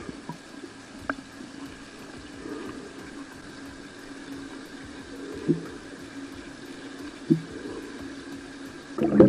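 Underwater sound in a swimming pool: a steady water hum with two short, low bubble puffs as a swimmer releases air rings, about five and a half and seven seconds in. A louder rush of bubbling starts just before the end.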